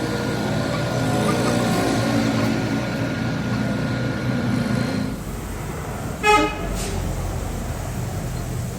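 A vehicle horn gives one short toot about six seconds in, over steady background street noise.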